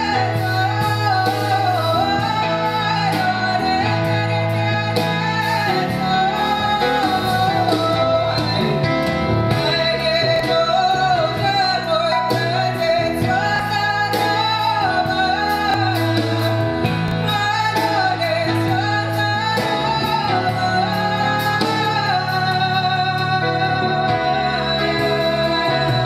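A woman singing a Russian folk song in a full, wavering folk voice, accompanied by grand piano and a drum kit with cymbals.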